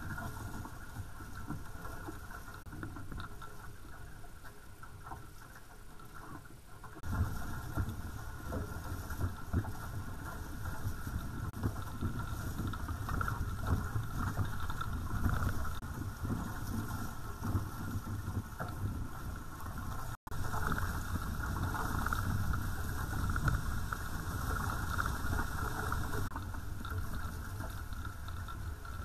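Water rushing and splashing past the hulls of a sailing catamaran under way at speed, with a low rumble. It gets louder about seven seconds in, and cuts out for an instant about twenty seconds in.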